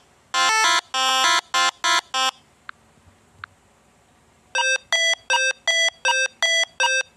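Electronic beeping tune of short buzzy notes in a repeating pattern that stops about two seconds in. After a pause with two faint clicks, a different run of even beeps starts near the end, about three a second.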